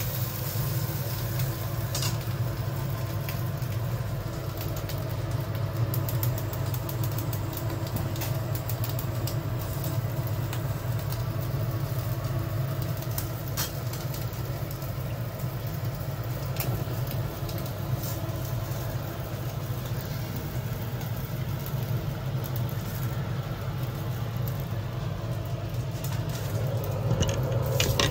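Steady low rumble and hum of a gas stovetop burner with kitchen fan noise as a whole fish grills on a wire rack, with a few faint scattered crackles.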